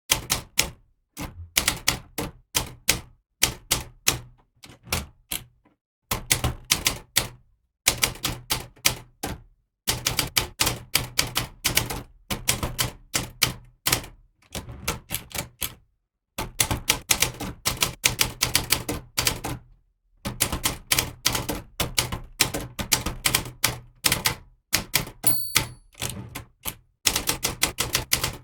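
Typewriter keys striking in fast runs of clatter, broken by short pauses every few seconds, with a brief high ring like the carriage bell about 25 seconds in.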